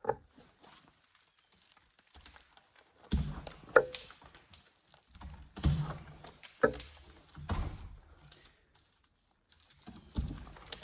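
Hand tools working on electrical cable as the wires are scored and cut to length: a handful of irregular clicks and thuds, two of them with a brief metallic ring.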